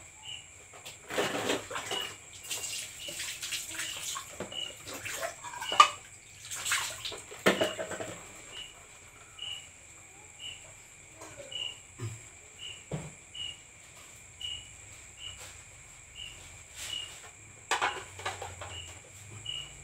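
Dishes being washed by hand: plates, bowls and pans clinking and knocking against each other with water splashing, in irregular bursts, the loudest about six seconds in. Behind it a cricket chirps at an even pace throughout.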